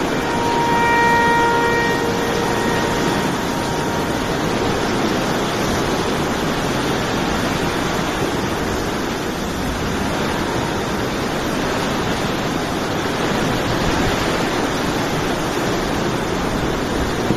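Hurricane-force wind blowing in a dense, steady rush that swells and eases slowly. A brief whistling tone sounds over it in the first few seconds.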